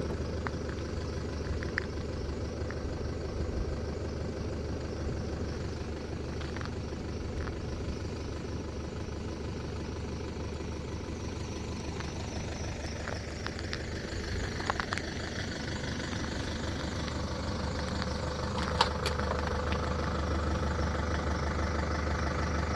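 A vehicle engine running steadily at low speed, a constant low hum, with a few light clicks and one sharper click about three-quarters of the way through.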